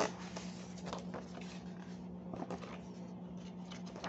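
A large picture book's paper page being turned by hand: a sharp knock as the book is handled at the start, then scattered paper rustling and small clicks, over a steady low hum.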